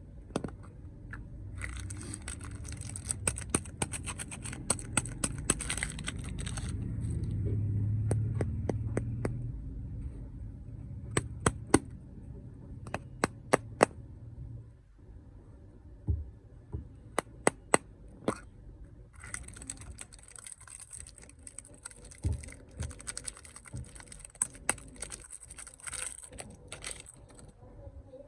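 Snack packaging being handled and unwrapped: crinkling of plastic wrappers in two long stretches, among many sharp taps and clicks.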